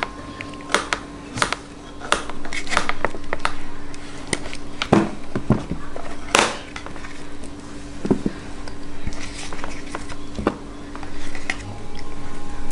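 Light clicks and knocks of a spoon and tableware on a plastic high-chair tray as a toddler eats, several in quick succession at first and a few more spread out later, over a steady low hum.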